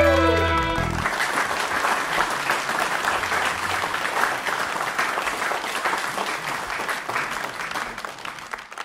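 The band's final held chord, with a singer's note sliding down, cuts off about a second in, followed by applause that slowly fades.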